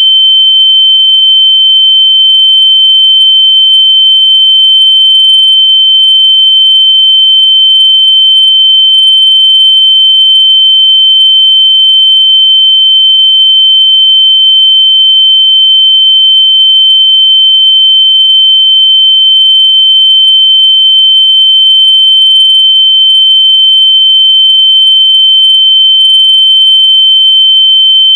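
A loud, steady, high-pitched electronic tone held at one pitch without a break: a locator sound played through lost AirPods so they can be found by ear.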